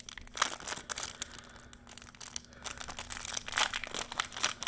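Foil wrapper of a Yu-Gi-Oh! trading card promo pack crinkling as it is handled and opened, in short irregular rustles.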